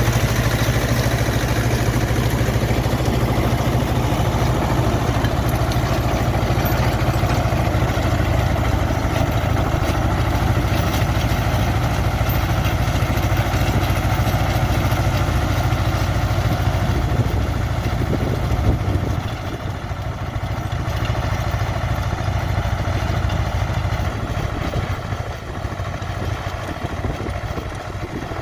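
Tractor diesel engine running steadily under load while working a field with a rotary tiller. It becomes somewhat quieter about two-thirds of the way through.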